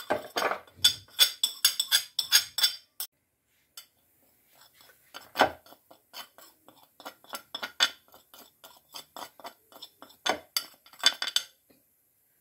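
Metal spoon clinking and scraping against a ceramic plate as ground spices are tipped into a plastic food-chopper bowl. A quick run of clinks comes in the first three seconds. Then, after a short pause, there is a longer series of lighter taps and scrapes, with one louder knock about five and a half seconds in.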